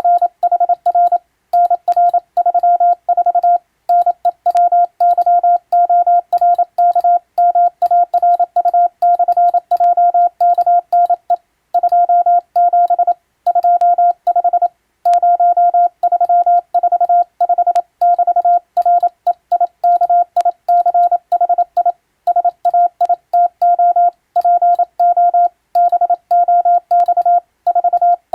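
Morse code sent on a telegraph key as a single steady tone of about 700 Hz, keyed in short dots and longer dashes with brief pauses between letters and words: an English-language radiotelegram sent for radio-operator exam practice.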